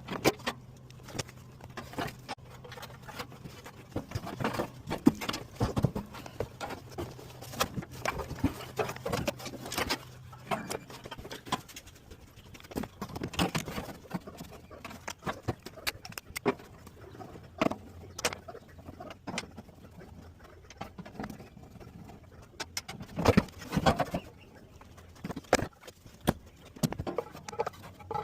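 Irregular clicks, knocks and rattles of hand tools and metal parts being handled during HVAC blower motor replacement work, over a steady low hum that stops about eleven seconds in.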